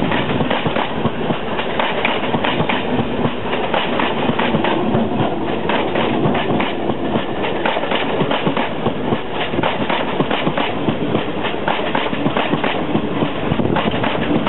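Indian Railways passenger coaches rolling past close by, their wheels clicking steadily and densely over the rail joints under a continuous rumble.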